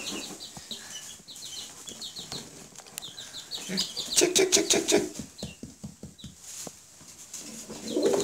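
Baby chicks peeping: a run of short, high, falling peeps repeated many times. About halfway through comes a louder burst of rustling and scratching in the straw.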